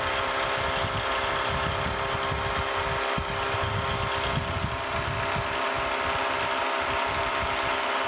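Drilling machine running steadily, its 3/16-inch twist drill boring a through hole in a small metal casting: a steady motor hum under rough cutting noise.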